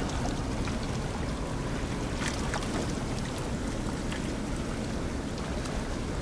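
Steady rush of water flowing through a concrete irrigation canal below a sluice, churning white where it runs fast.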